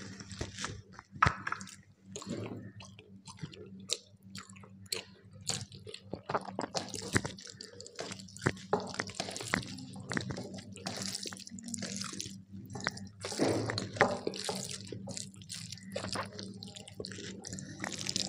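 Eating sounds: wet smacking and chewing of rice taken with thin, watery sour dal, many small irregular clicks and squelches.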